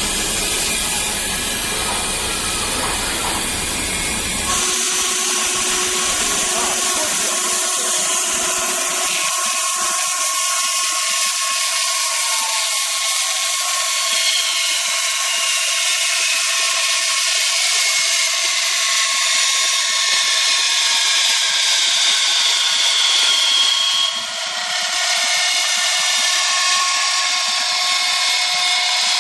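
Summa 740 Plastic Cut band saw running steadily with a high whine that slides slowly in pitch, typical of the blade cutting through a thick plastic block. The level dips briefly about 24 seconds in.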